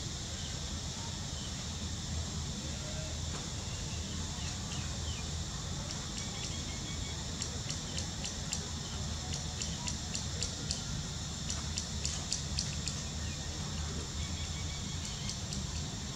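Steady outdoor insect chorus, a high continuous trilling, over a low steady rumble. A run of rapid high ticks comes in about six seconds in and fades out near thirteen seconds.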